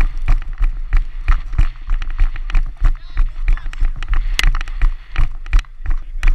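Running footsteps on grass jolting a helmet-mounted camera, a steady beat of about three thuds a second.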